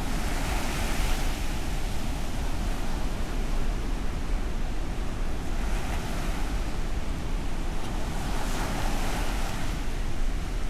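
Ocean surf: a continuous wash of breaking waves that swells louder every few seconds, with wind rumbling on the microphone.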